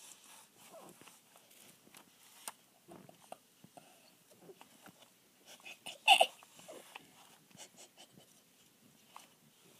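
Angora cat in heat calling: one short, loud meow about six seconds in, with fainter falling calls before and after it.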